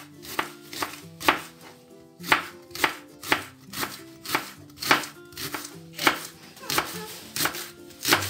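Kitchen knife shredding white cabbage on a wooden cutting board: crisp cuts knocking on the board about twice a second, with quiet background music underneath.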